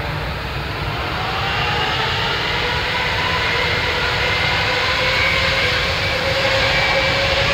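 Airbus A380 jet engines running as the four-engined airliner rolls slowly on the taxiway: a steady rush with a turbine whine that rises slowly in pitch and grows a little louder.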